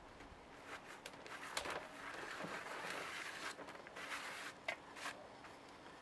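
Gloved hand brushing and pressing loose potting compost level in a plastic pot, a soft gritty rustle with a few light knocks.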